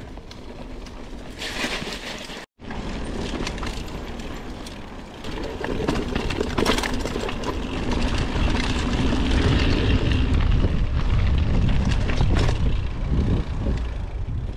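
Mountain bike descending a dirt trail: wind buffeting the on-board camera's microphone as a heavy rumble, with tyre noise and rattles and knocks over bumps. The rumble grows louder about five seconds in as the bike picks up speed.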